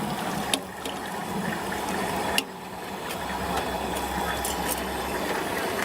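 Hot oil sizzling steadily in a deep fryer, with two sharp clicks, about half a second and about two and a half seconds in.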